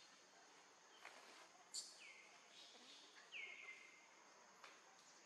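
Faint outdoor ambience: a steady high-pitched hum, with two short high calls that slide down in pitch and then hold level, and a few faint clicks.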